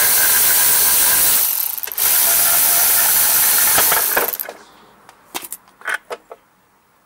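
Cordless electric ratchet running in two bursts, the first stopping about a second and a half in and the second stopping about four seconds in, backing out the muffler bolts on a push mower engine. A few short clicks and knocks follow.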